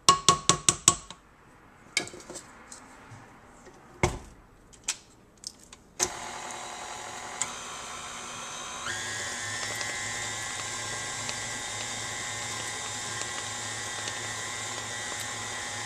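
Rapid ringing metal taps on the stainless mixing bowl for about a second, then a few knocks as the mixer is set up. About six seconds in, a KitchenAid Artisan stand mixer's motor starts, beating cake batter with a steady whirring hum. Its tone changes about three seconds later.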